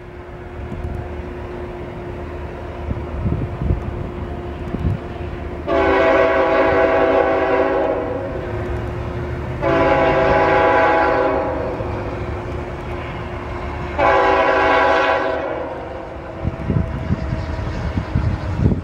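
Locomotive horn of a CSX ET44AH sounding three blasts, the first two long and the third shorter: the opening of the long-long-short-long grade-crossing signal. A steady low rumble runs underneath.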